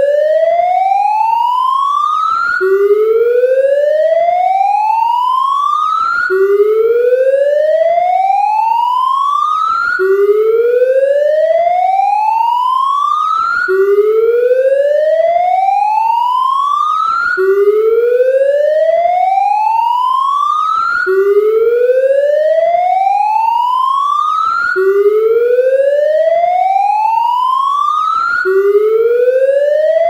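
Police siren: one electronic tone rising steadily in pitch for nearly four seconds, then snapping back down and rising again, repeating over and over.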